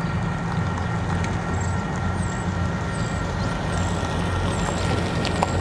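Steady low engine rumble with two faint steady whining tones over it, and short high chirps repeating roughly every two-thirds of a second.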